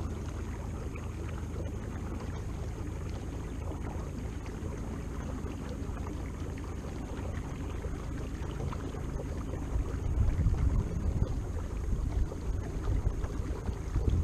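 Water washing along a moving kayak's plastic hull and wind on the microphone, over a faint steady hum from a Watersnake T24 electric trolling motor. The wind gusts louder about ten seconds in.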